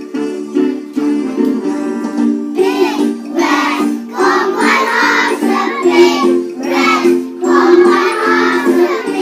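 A children's song: singing over steady instrumental backing, with jingling percussion.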